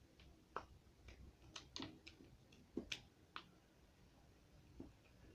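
Faint, scattered small clicks and taps from slime being stirred and handled as it sets, with quiet gaps between them.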